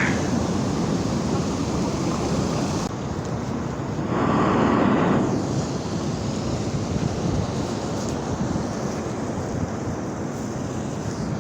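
High surf breaking and rushing ashore, with wind buffeting the microphone. One louder wave surges about four seconds in.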